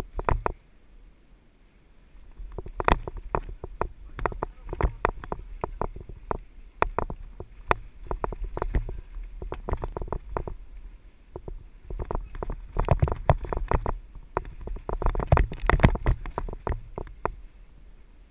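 Mountain bike rolling down a rough dirt trail: an irregular run of rattles, clicks and knocks as the wheels go over roots and stones, over a low rumble. Quieter for the first couple of seconds, then busy.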